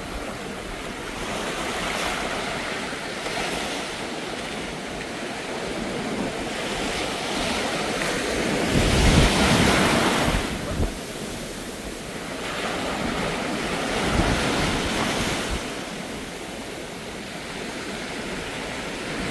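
Sea surf washing up a sandy beach: waves breaking and rushing in as a steady hiss that swells and fades, loudest about halfway through and again a few seconds later, with wind rumbling on the microphone.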